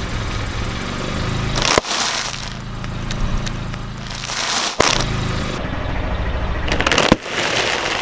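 Car tyre rolling over a bag of tortilla chips: crinkling foil and crunching chips that end in a sharp pop as the bag bursts, heard three times. A car engine runs low underneath.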